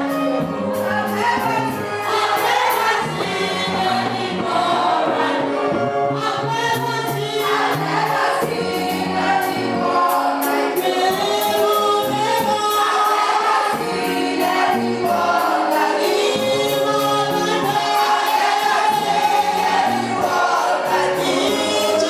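A choir singing gospel music with band accompaniment and a steady beat.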